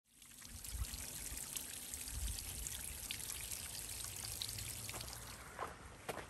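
Water running in a small stream: a steady trickling and splashing. Near the end, a few footsteps on the path.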